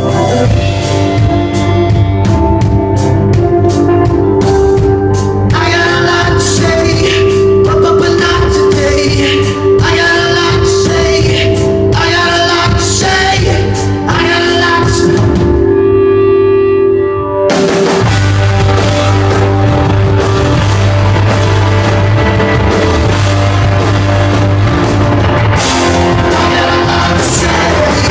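Live rock band playing an instrumental stretch with guitar, bass and drum kit. About sixteen seconds in the cymbals and upper parts drop out briefly, then the full band comes back in.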